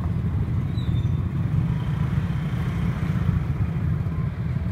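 Several motorbike engines running at low speed close by, a steady low rumble.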